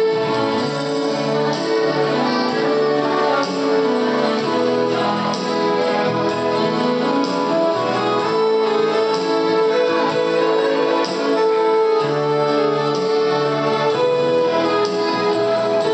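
Live band music with a keyboard to the fore, playing an instrumental passage without singing.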